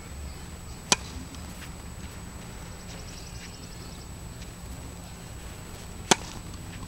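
Two sharp pops about five seconds apart; the second is a racket striking the ball on a tennis second serve. A few faint taps come between them.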